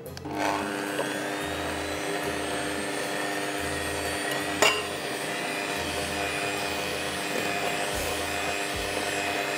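Anex electric beater switching on at low speed and running steadily, creaming butter and powdered sugar in a bowl. There is a single sharp knock about halfway through.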